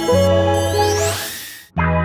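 Ambient electronic background music. A rising swoosh builds, the music falls away to a brief gap near the end, then comes straight back in.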